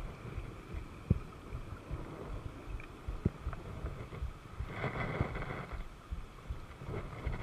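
Wind buffeting the camera microphone as a low rumble, with a couple of sharp handling knocks and a brief hiss about five seconds in.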